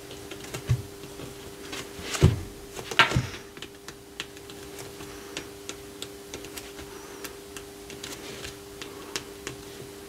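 Light, irregular taps of a white gel pen's tip dotting onto watercolour paper, with two louder knocks about two and three seconds in, over a steady low hum.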